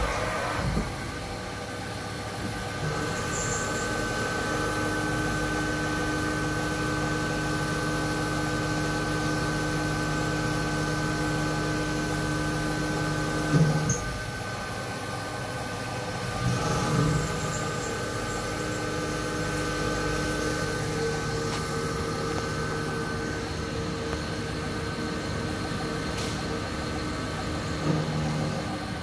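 Haas VF-3 vertical machining center milling a metal block: a steady spindle whine and cutting hum, with a few brief louder bursts about halfway through and near the end.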